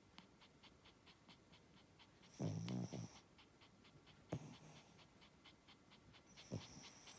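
Pomeranian spitz snoring in its sleep: one longer snore about two and a half seconds in, then short sharp snorts a little after four seconds and again near six and a half.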